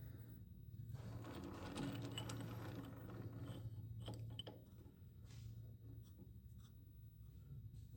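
Faint steady low hum with scattered light clicks and knocks, busier in the first half.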